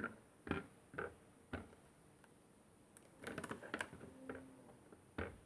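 Scattered light clicks and taps from handling small tools and objects at a workbench. A few single clicks come in the first second and a half, a quick run of clicks follows about three seconds in, and one more click comes near the end.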